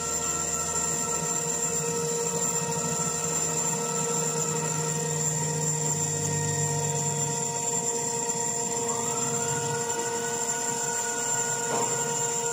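CNC router spindle milling a carbon steel plate, its cutter tracing a circular groove under coolant. A steady whine of several held tones over the cutting noise; about two-thirds of the way through a new tone slides up and holds.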